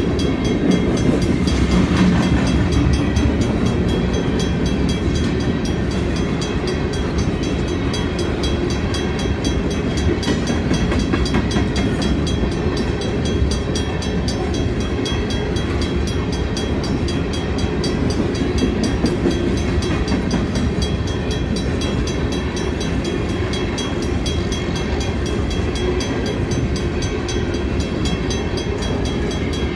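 Freight train of covered hopper cars rolling past at speed: steady wheel-on-rail noise with fine continuous clicking from the wheels.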